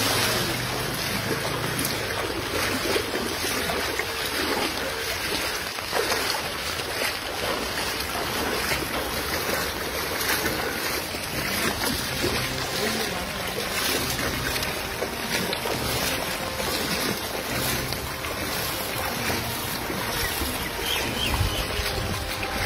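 Steady, even rush of wind and water noise around floodwater, with wind buffeting the microphone in a few low gusts near the end.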